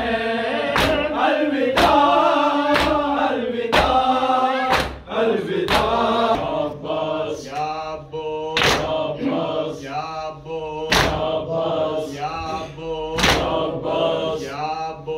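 A group of men chanting a noha (Shia lament) in unison, with sharp slaps of hands striking bare chests in matam roughly once a second.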